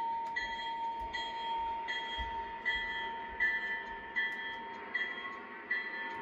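Lionel O gauge model train running on the layout, with a steady high whine and a ringing note that repeats about every three-quarters of a second.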